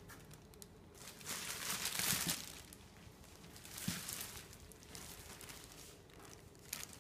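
Clear plastic wrapping crinkling and rustling in irregular bursts as a plastic-wrapped backpack is handled, loudest about two seconds in.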